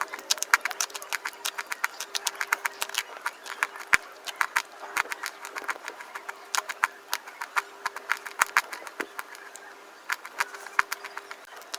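Rapid crunching, several sharp cracks a second at an uneven pace, as crunchy food is bitten and chewed. A faint hum comes and goes underneath.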